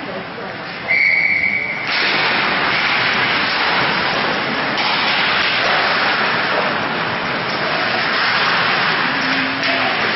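A referee's whistle blown once, a single steady shrill tone lasting about a second, followed by a loud steady rushing noise.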